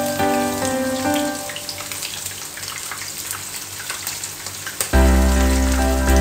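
Coated squid pieces deep-frying in hot oil, a steady crackling sizzle. Background music plays over it at first, drops away about a second and a half in, and comes back louder with a heavy bass about five seconds in.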